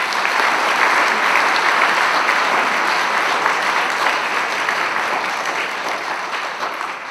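Audience applauding: a roomful of people clapping steadily, tapering off near the end.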